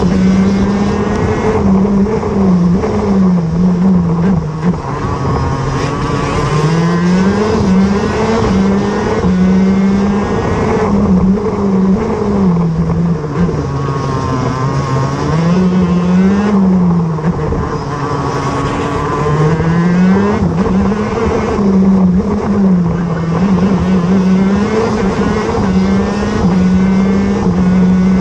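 125cc two-stroke shifter kart engine at racing speed, heard from a camera mounted on the kart; the revs climb and drop again and again, rising in short steps and falling away between corners.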